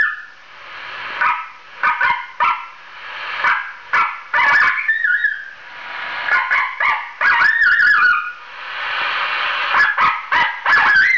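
Recorded coyote challenge bark played through a homemade electronic predator caller's amplifier and horn speaker: sharp barks and yips in irregular bunches, with a hiss swelling between them.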